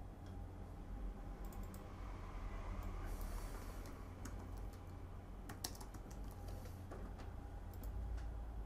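Typing on a computer keyboard: scattered single keystrokes and clicks over a steady low hum.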